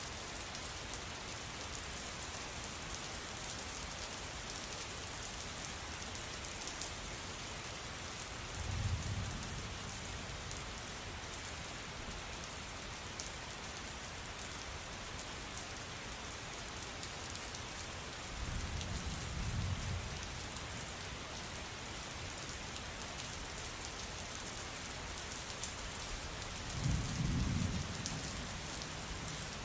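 Steady rain falling, an even hiss with fine drop ticks, broken three times by short, low rumbles of thunder about nine seconds apart.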